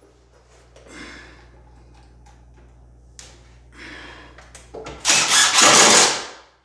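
Power screw gun running as it drives screws into drywall board, with a few softer runs and then a long loud run of about a second and a half near the end.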